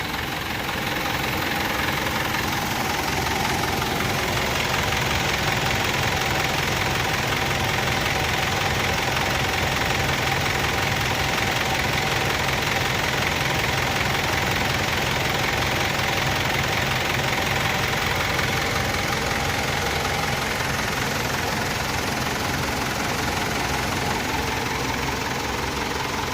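Mitsubishi Fuso Canter's 4M50 four-cylinder diesel engine running steadily at idle.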